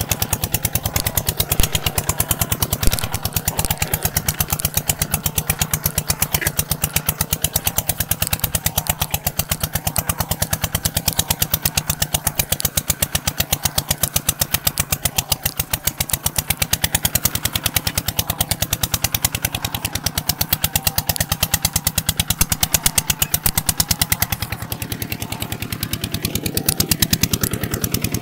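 Kubota ZT 180 single-cylinder diesel engine running steadily with a rapid, even putter.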